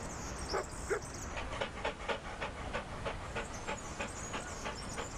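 A dog panting quickly and evenly, about four breaths a second, after two short sounds falling in pitch near the start.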